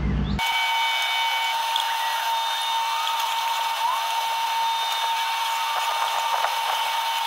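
A steady high-pitched whine made of several held tones, with faint short sliding chirps and no low sound under it, cutting in abruptly about half a second in.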